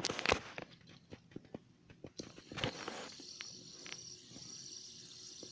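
Clicks and rustles of a fidget spinner being handled. From about three seconds in, the spinner gives a faint steady whir as it spins on a fingertip.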